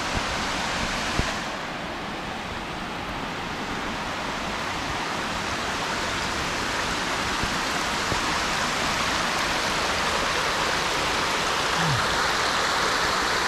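Small waterfall running down a rocky slope into a shallow creek: a steady rush of water over stones.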